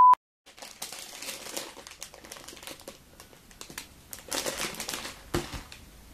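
A short, steady beep at the very start, from a film-countdown leader, then the plastic wrapper of a Shin Ramyun instant-noodle packet crinkling irregularly as it is handled, with a soft knock about five seconds in.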